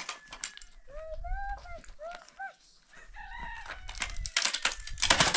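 Chickens calling, a run of short rising-and-falling calls through the first half. Near the end comes a louder clatter of wooden poles being shifted on the ground.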